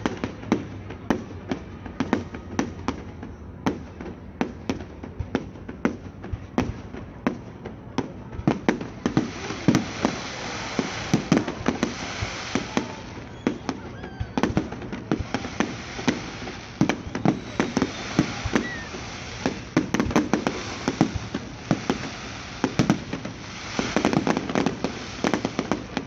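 Large fireworks display: a rapid, uneven series of sharp bangs from shells bursting overhead, several a second, with stretches of dense hissing crackle a third of the way in and again near the end.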